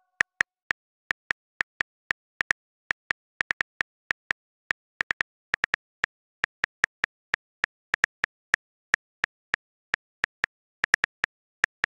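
iPhone on-screen keyboard click sounds as a message is typed, one short crisp tick per key press, coming irregularly at a few per second.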